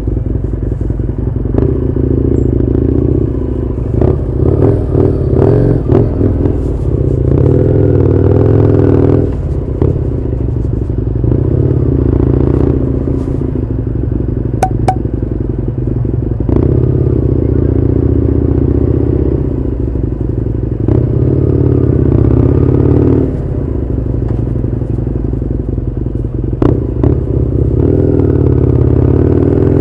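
Husqvarna Nuda 900R's parallel-twin engine, heard from a camera mounted on the moving bike, pulling through town in repeated spells of opening and closing the throttle. A few sharp clicks come through about halfway and near the end.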